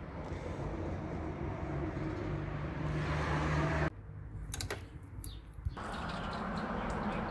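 A steady low mechanical hum, broken for about two seconds by a hand ratchet clicking in short runs as a screw is driven in.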